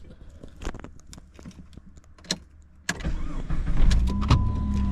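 Keys jangling and clicking, then about three seconds in a car engine starts and runs, with a steady high tone joining a second later.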